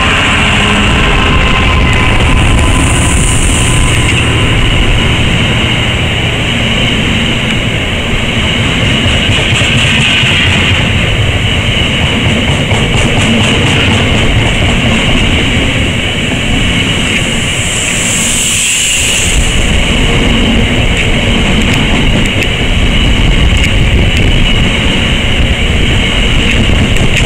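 A long train of loaded coal hopper wagons rolling past at speed, with a steady rumble of wheels on rail and high ringing tones from the wheels running through it. A brief high hiss comes twice, about 3 and 18 seconds in.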